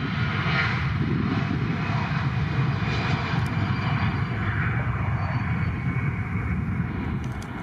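Swiss Airbus A320's twin jet engines at takeoff power on departure: a steady, loud, low rumble that cuts off abruptly at the very end.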